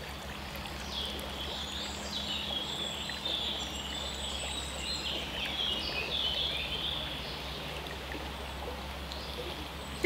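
Forest stream water flowing steadily, with birds chirping high in the background through the middle.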